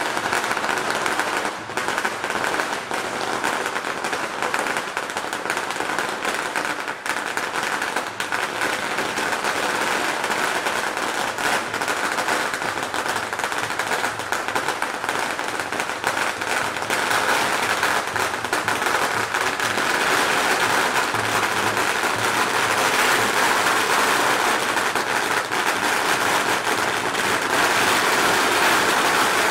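A long string of firecrackers going off, a dense run of rapid bangs with no break, slightly louder in the last third.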